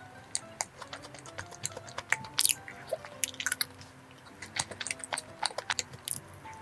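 Close-miked chewing of a soft, cream-filled glutinous rice cake (chapssaltteok), with many short sharp mouth clicks, over soft background music with sustained notes.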